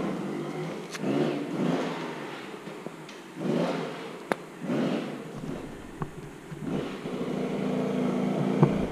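Enduro dirt bike engine revving in short bursts with the throttle blipped repeatedly, then holding a steadier note over the last couple of seconds. A sharp knock sounds just before the end.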